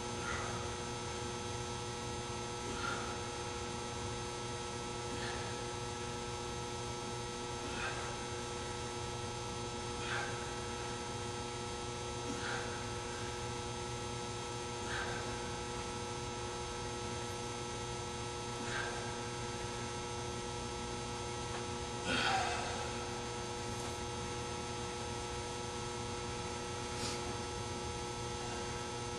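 Steady electrical mains hum made up of several steady tones over a low hiss. Faint short sounds recur about every two and a half seconds, with one a little louder about three quarters of the way through.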